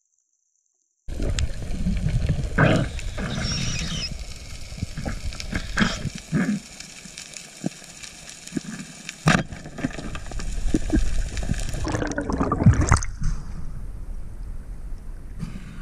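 Underwater camera audio: water rushing and bubbling around the camera housing, with irregular muffled knocks and clicks. It starts abruptly about a second in and turns quieter near the end.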